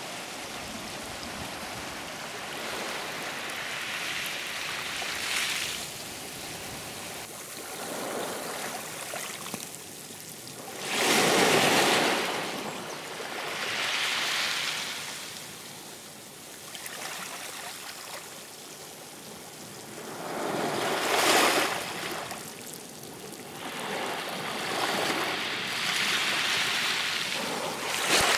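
Sea waves washing in, each swell rising and falling back every few seconds over a steady wash of surf.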